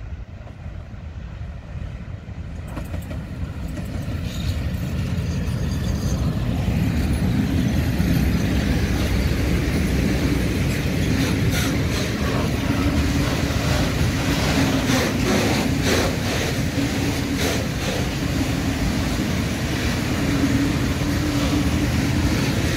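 A train approaching and running past: the rumble builds over the first several seconds, then holds loud and steady with a low hum. In the middle, its wheels click over the rail joints.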